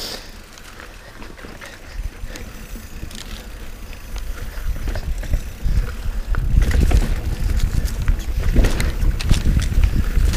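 Mountain bike descending a dirt singletrack: tyre rumble and rattling clicks from the bike over the rough trail, with wind on the chest-mounted camera's microphone. It grows louder and rougher about six seconds in.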